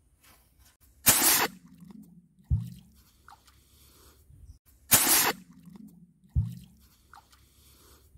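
A small firework rocket hissing for about half a second as it goes into the water, followed about a second and a half later by a dull low thump under the water. The same hiss-and-thump pair is heard twice.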